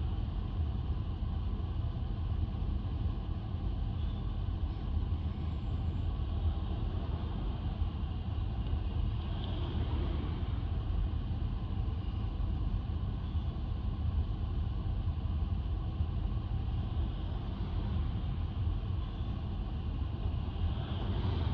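Steady low rumble of city street traffic and vehicle engines, with no distinct events.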